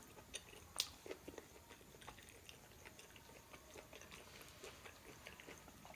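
Faint close-up chewing of a pork momo dumpling: soft, scattered wet mouth clicks, with one sharper click a little under a second in.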